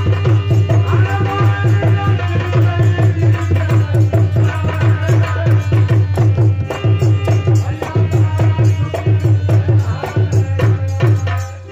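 Live nautanki folk music: a dholak hand drum beating a fast, steady rhythm under a held melody line, breaking off at the very end.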